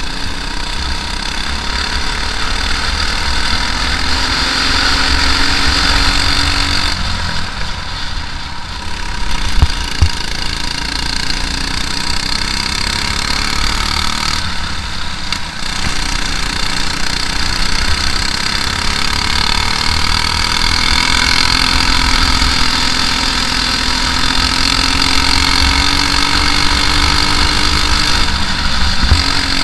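Briggs & Stratton LO206 four-stroke single-cylinder kart engine running hard in a race, heard from the kart's onboard camera. Its pitch climbs steadily as the kart accelerates, then drops sharply three times as the driver lifts off for corners.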